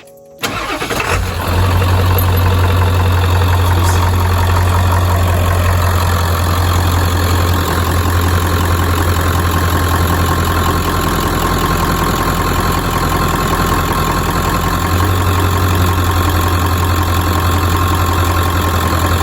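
Ford F-250's 7.3-litre diesel V8 starting up about half a second in and then idling steadily, checked for leaks after a fresh oil and filter change.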